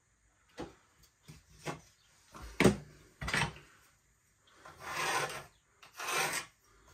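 A few light knocks and taps as a wooden batten and spirit level are handled against a plaster wall, the loudest about two and a half seconds in. Near the end, a pencil scratches along the wall in two strokes, marking a line against the batten.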